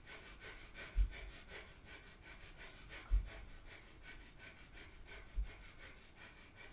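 Breath of fire: rapid, even, forceful exhalations pumped through the nose in a steady rhythm. A dull thump sounds about every two seconds as the heels come down to the floor during leg lifts.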